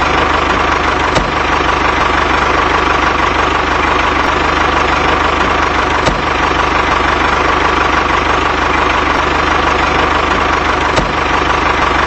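A motor or engine running steadily, with an even hum and a constant low chugging pulse. There are faint ticks about a second in, around six seconds, and near the end.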